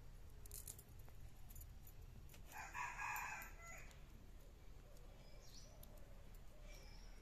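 A rooster crows once, about two and a half seconds in. Under it are faint scraping clicks from a small fish being cleaned against a curved boti blade.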